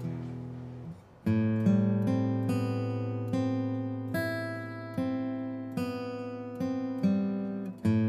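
Background music: an acoustic guitar plucking and strumming chords, each ringing out and fading. After a short break about a second in, it grows fuller and louder.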